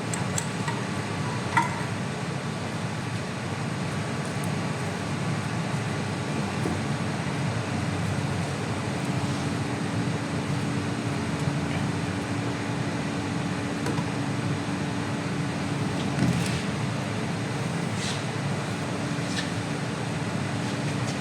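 Steady mechanical hum of an air-conditioning recharge machine running in the workshop, with a low steady tone joining for several seconds in the middle. A few light clicks of tools being handled come through it.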